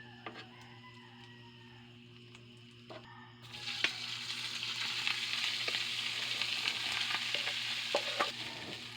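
Food frying in hot oil: a loud sizzle starts suddenly about three seconds in and keeps going, dotted with small crackles and pops, over a steady low hum.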